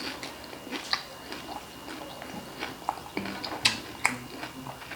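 Close-up crunching and chewing of crispy deep-fried chicharon bulaklak (pork mesentery), a scatter of sharp crackles as the pieces break between the teeth.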